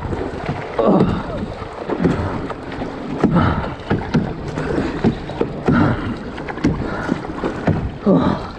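Double-bladed kayak paddle strokes dipping and splashing in a quick, even rhythm, a little more than one stroke a second, as the kayak is paddled hard.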